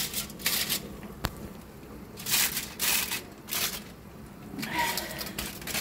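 Aluminium foil crinkling in several short bursts as it is pressed back over a baking dish.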